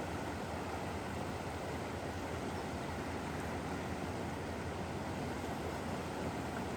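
Steady rushing of the flooded Winooski River running high.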